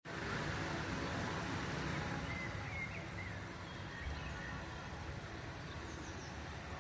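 Steady outdoor background rumble and hiss, with a few faint bird chirps about two to three seconds in and again near the end.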